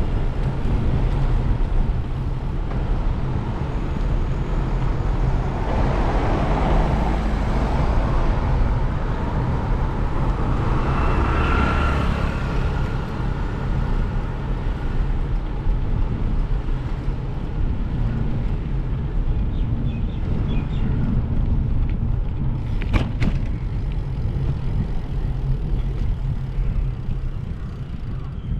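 Steady road and wind noise of a moving vehicle, with a constant low rumble. The noise swells twice, about six and twelve seconds in, and there is a brief sharp click a little before the end.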